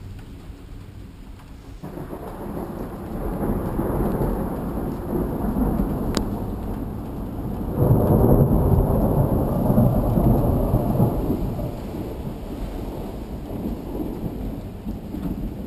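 Rolling thunder: a deep rumble that builds about two seconds in, swells to its loudest around eight seconds and slowly dies away, over the hiss of rain. A single sharp click sounds about six seconds in.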